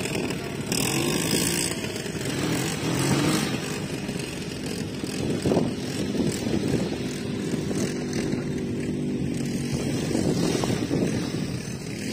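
Quad bike (ATV) engines running and revving as the machines climb a sand dune, the engine note rising and falling.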